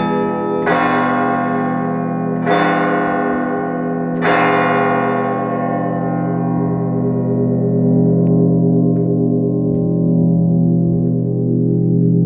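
Russian Orthodox church bells: three more strokes about two seconds apart, then no more strikes while the bells ring on with a deep, lingering hum.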